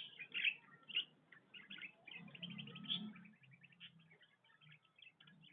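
Canary chirping and singing: a few loud chirps, then a quick run of short notes from about two seconds in.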